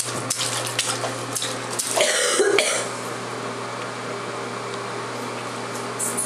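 Small hands splashing in bubbly bathwater, then a short throaty cough-like vocal sound about two seconds in, over a steady low hum.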